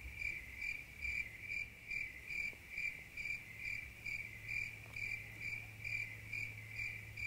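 Cricket chirping steadily in an even rhythm, about two short high chirps a second, over a low hum.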